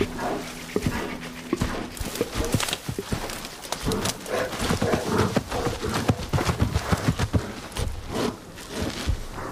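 Brown bears moving close by through brush: a run of irregular knocks, cracks and scuffs from their heavy steps and the twigs under them, with some breathy sounds between.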